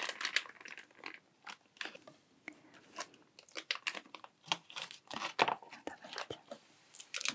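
Plastic packaging wrap crinkling and crunching as it is handled, with irregular crackles and a few sharper clicks, loudest about five seconds in.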